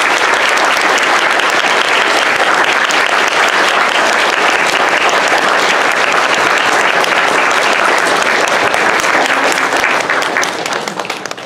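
Audience applauding, a dense steady clapping that dies away over the last second or so.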